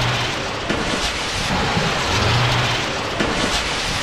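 A salvo of artillery rockets launching, a loud steady rushing roar of rocket motors with no break.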